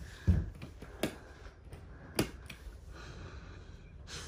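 A low thump, then two sharp clicks about a second apart: a wall light switch being pressed as the room lights come on.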